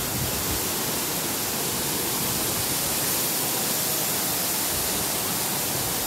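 Waterfall pouring down a rock face into its pool: a steady, even rush of falling water.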